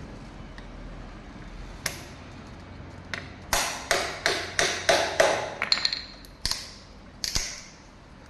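Hammer tapping on a metal part: a single sharp click, then a quick run of about eight ringing metallic blows, roughly three a second, and two more spaced blows near the end.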